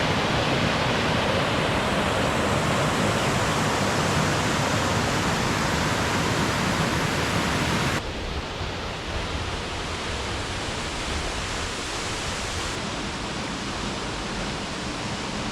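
Awosting Falls, a 60-foot waterfall, giving off a steady rushing roar of falling water. About eight seconds in the sound cuts to a somewhat quieter take of the same rush.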